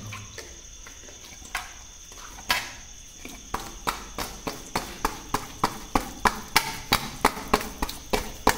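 A lump of ragi kali (finger-millet dough) tossed and rolled in a wet metal plate to shape it into a ball: quiet at first, then a rhythmic knocking of the dough against the plate, about three knocks a second, from about three seconds in.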